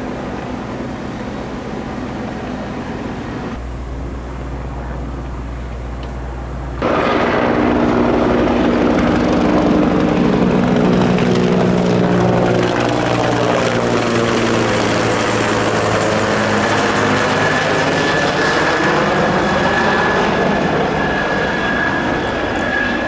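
Street traffic noise at first, then, about seven seconds in, a fire department helicopter flying low overhead: the steady beat of its rotor and a high turbine whine, loud, with a sweeping, phasing quality as it passes over.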